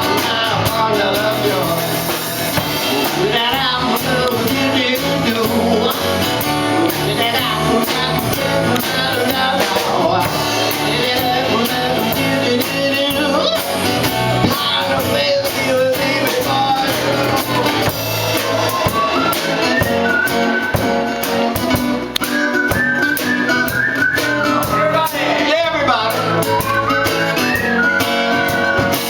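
Live band playing an instrumental passage between sung verses, with guitar to the fore.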